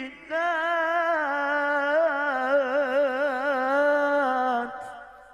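A man chanting the Qur'an in melodic tilawah style. After a short breath at the start he holds one long ornamented note with a rapid wavering in pitch, which ends about four and a half seconds in and trails off in reverberation.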